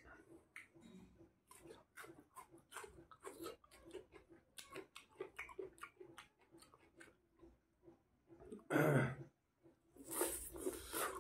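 Close-miked eating sounds of a man eating chicken curry and rice with his fingers: wet chewing, lip smacks and small mouth clicks. A single much louder short sound comes just before the nine-second mark, and louder biting and chewing follows near the end.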